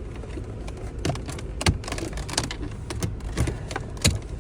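Plastic dashboard trim being pried out with a screwdriver: a series of sharp clicks and knocks as the panel and its clips shift. Under it runs the low, steady hum of the minivan idling.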